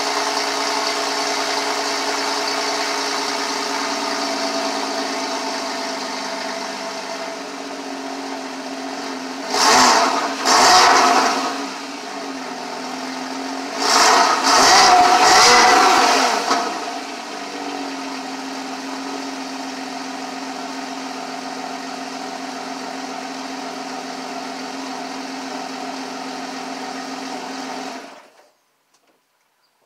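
2014 Porsche Cayman's 2.7-litre flat-six, heard at the exhaust tips, idling high after a cold start and settling lower. It is blipped twice, then three more times in quick revs. It then idles steadily until it is switched off near the end.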